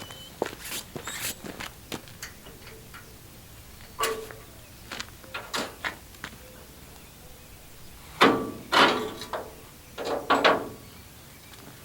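Irregular clicks and knocks of things being handled, with louder scraping clunks about eight and ten seconds in.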